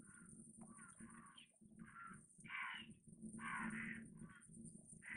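Crows cawing, a string of about eight harsh calls, loudest in the middle, over the low steady drone of an approaching WDM-3D diesel locomotive.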